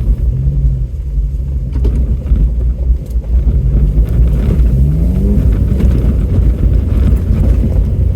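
Off-road vehicle's engine running under load, heard from inside the cab as it crawls along a rough trail, with the revs climbing about halfway through and a few faint knocks.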